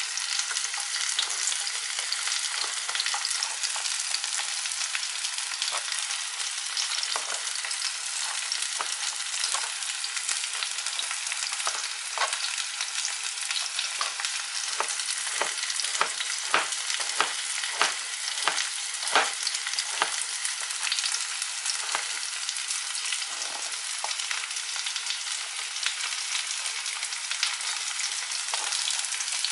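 Hot oil sizzling steadily, with knife strokes chopping zucchini on a cutting board; the chops come in a quick run about halfway through.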